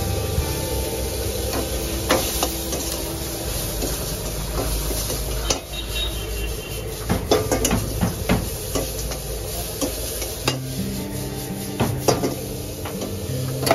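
Stir-frying in a steel wok: a metal ladle repeatedly clanks and scrapes against the pan at an irregular pace as the food sizzles. A low steady rumble underneath drops away about ten seconds in.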